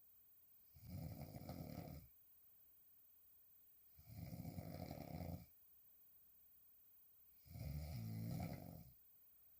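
A woman snoring while she sleeps on her back: three snores, each a little over a second long, about three seconds apart, with quiet breathing gaps between them.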